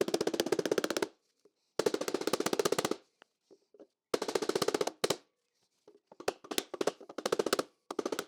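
Pneumatic air chisel fitted with a nylon chaser, hammering a steel floor pan panel over forming tooling. It runs in rapid bursts of about a second each, five in all, with short pauses between them, as the chaser sinks a valley into the sheet metal.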